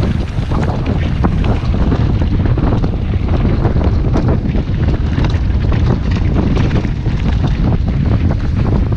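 Wind buffeting the microphone of a camera on a mountain bike descending fast, with a constant rumble and many small clicks and rattles from the tyres and bike running over loose dirt and stones.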